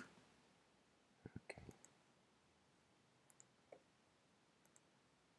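Near silence, broken by a few faint computer mouse clicks: a quick cluster about a second and a half in, then a couple of fainter ticks later.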